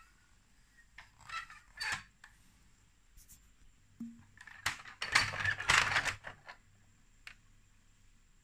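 Plastic Lego Duplo bricks and toy trucks clicking and clattering as they are handled, with a few short clicks early and a longer, louder rattle about five seconds in.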